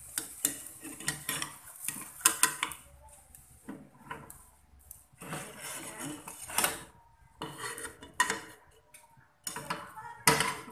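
Metal spatula scraping and clinking against a small non-stick frying pan as the cooked omelette is lifted out. This comes as a run of sharp clicks and scrapes, and near the end there is a loud knock as the pan is moved on the gas stove.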